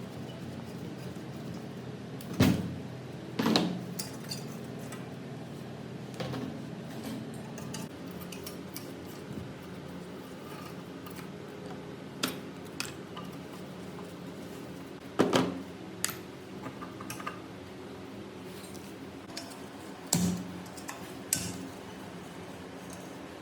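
Metal parts and tools clinking and knocking against each other every few seconds, with a steady low hum underneath.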